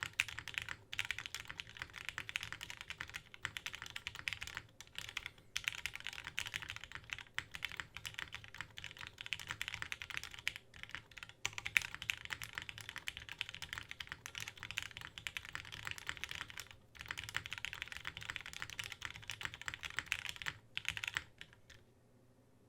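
Continuous fast typing on a mechanical keyboard with lubed Gateron Lion linear switches on a polycarbonate plate. The keystrokes come in quick runs with brief pauses, and they die away about a second before the end.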